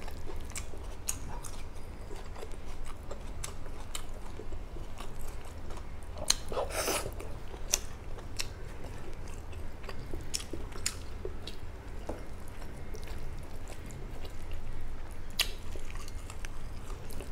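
A person chewing food and picking fried fish apart by hand: scattered small mouth and finger clicks, with a louder rustle about seven seconds in.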